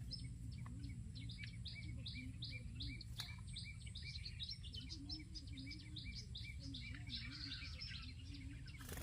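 Olive-backed sunbird calling: a rapid series of short, high chirps, several a second, over a steady low rumble.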